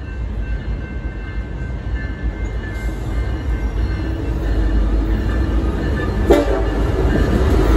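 EMD SD70ACe diesel locomotives leading a double-stack freight train as it approaches, their low rumble growing steadily louder. There is a brief sharp blip about six seconds in.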